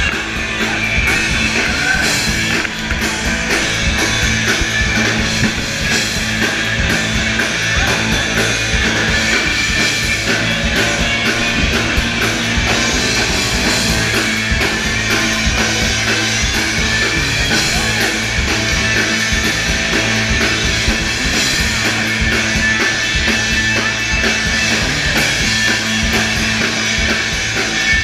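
Live rock band playing loud, with electric guitars over a steady drum-kit beat, heard from within the crowd.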